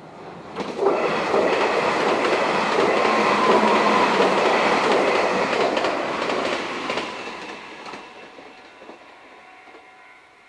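Meitetsu eight-car electric train passing, wheels clattering on the rails. It comes in suddenly under a second in, stays loud for about six seconds, then fades away.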